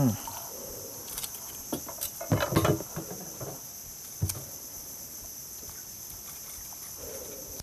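Steady high-pitched chorus of insects from the mangrove bank. A few knocks and thumps come about two and a half seconds in and again near four seconds, as the landing net and fish are handled on the wooden boat.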